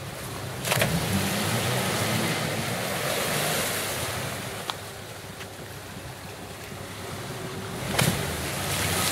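Jeep engines revving while a stuck Jeep Cherokee's tyres spin, churning mud and water as a Jeep Wrangler pulls it on a tow strap. The engines and the churning get louder about a second in and again near the end, each time starting with a sharp knock.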